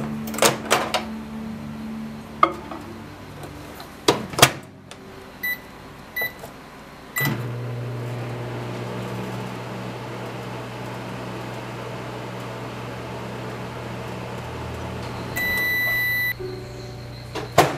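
Microwave oven being used: clicks and knocks, a few short keypad beeps, then the oven starts with a beep and runs with a steady low hum. One longer beep sounds near the end, followed by a couple of clicks.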